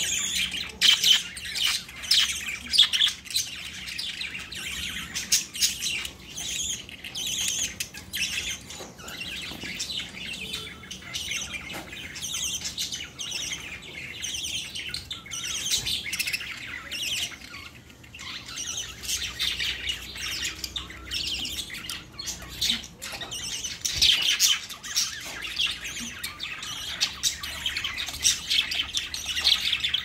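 A small flock of caged budgerigars chattering together: a continuous busy warble of chirps with sharper squawks mixed in, loudest about a second in and again near the end.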